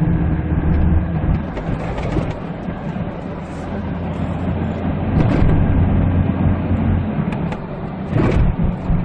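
Jeep Wrangler 2.8 turbodiesel engine and road noise inside the cabin while driving: a steady low hum that eases off a little and then builds again midway, with two faint brief knocks near the end.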